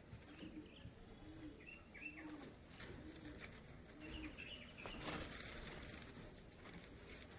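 A dove cooing softly over and over, roughly one low coo every second, with faint chirps of small birds and a brief rustle about five seconds in.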